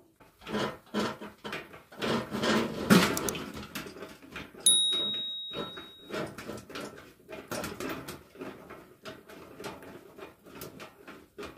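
Hand tools working corrugated metal roofing sheet against hardwood boards while screws are driven by hand: uneven knocks, clicks and scrapes. About a second after the midpoint, a single sharp metallic ring dies away over a second and a half, and near the end comes a fast run of small clicks.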